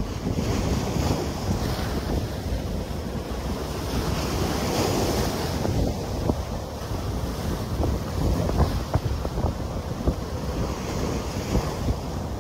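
Surf breaking and washing over the granite boulders of a rock jetty, with gusty wind buffeting the microphone.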